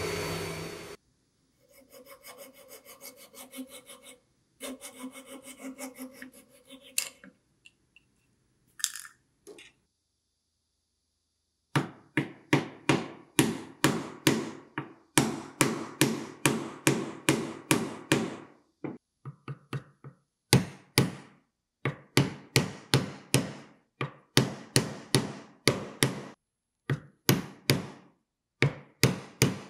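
A table saw's steady running cuts off about a second in, followed by several seconds of rhythmic scraping strokes. From about twelve seconds on, a wooden mallet strikes a chisel about twice a second, chopping waste out of a lap joint in oak.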